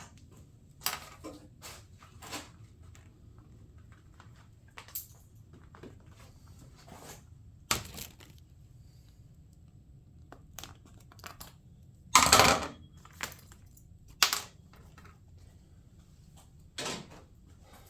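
Scattered clicks, taps and rustles of small plastic parts being handled, with a louder half-second scrape or crinkle about twelve seconds in and sharp clicks near eight and fourteen seconds.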